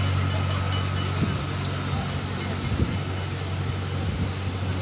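An engine running steadily with a low hum, with a fast regular ticking of about six a second that drops away briefly after about a second.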